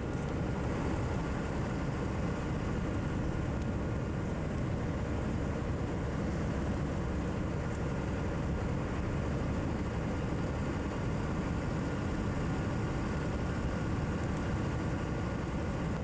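Steady cab noise of a Volvo F12 truck cruising on a motorway: an even diesel engine drone with road and wind noise, strongest in the low end and unchanging throughout.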